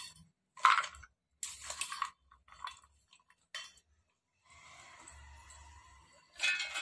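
Chunks of fresh coconut scooped from a steel bowl and tipped into a stainless-steel mixer-grinder jar: about six short rattles of pieces dropping and clinking against the steel.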